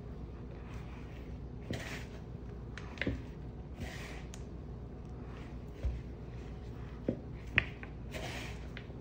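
Bare hands kneading and squeezing a dry, crumbly peanut-butter dough in a mixing bowl: soft rustling and squishing every couple of seconds, with a few light clicks or taps against the bowl.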